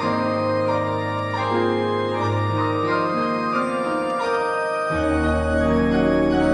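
Organ and piano duet: the organ holds sustained chords over a pedal bass, changing notes about once a second, with piano notes alongside. A deep pedal note comes in about five seconds in.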